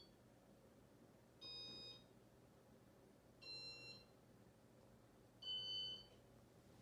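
Three short electronic beeps about two seconds apart, each a chord of high tones with a different pitch each time, over near silence and a faint low hum; no scraping is heard.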